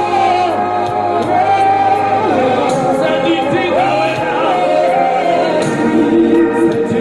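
Gospel worship singing: voices holding long, gliding sung lines over a steady sustained low accompaniment.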